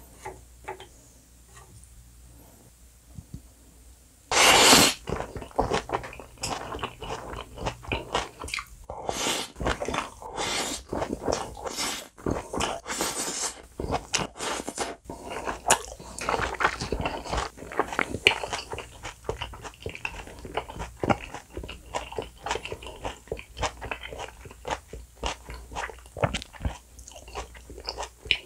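Close-miked eating: after a few quiet seconds, a sudden loud burst as food is scooped from a small dish into the mouth with chopsticks, then steady chewing with many wet mouth clicks.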